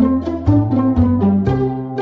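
Background music: a bouncy plucked-string tune, notes landing about twice a second over a bass line.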